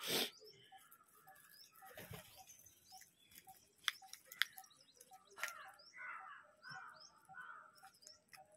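House crows flapping their wings as they hop and land among the flock, with a loud flap right at the start and another at about two seconds. Short chirping bird calls come throughout, thickest in the second half, with two sharp clicks near the middle.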